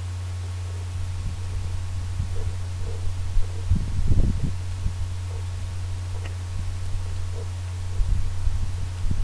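Steady low hum with muffled low thumps and rumbling, a cluster near the middle and another near the end, from handling of the camera and microphone. No gunshots.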